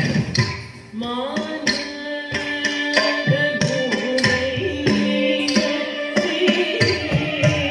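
Carnatic music with a sustained melodic line over regular drum strokes. It thins out briefly just before a second in, then resumes.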